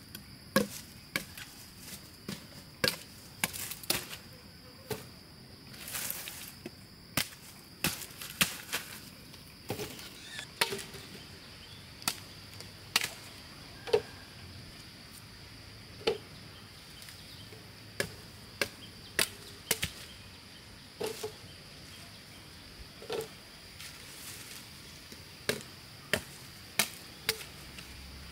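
Machete chopping at purple sugar cane stalks: sharp, irregular strikes, roughly one every second or two.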